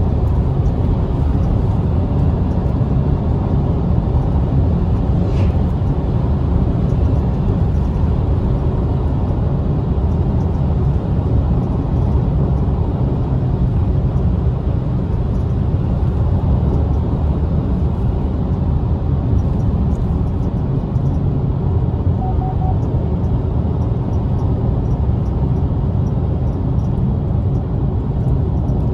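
Steady low rumble inside a moving car's cabin: tyres rolling on asphalt and the engine running at cruising speed.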